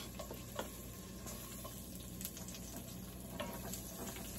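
Chopped onion frying in a little oil in a pan with a faint, steady sizzle, with a few light taps and scrapes of a wooden spatula as it is pushed in and stirred.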